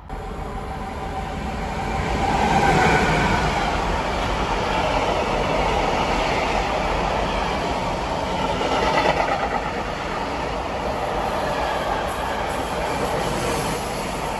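Intermodal freight train of wagons carrying lorry trailers passing at speed: a steady rumble of wheels on rails that swells about two seconds in and stays loud as the wagons roll by.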